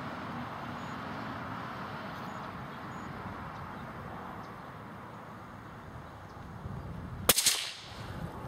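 A single gunshot about seven seconds in: one sharp crack with a short ring-off, over a steady background hiss.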